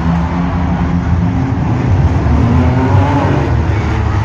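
Several demolition derby compact cars' engines running and revving together, loud and continuous, with pitch rising and falling as they accelerate.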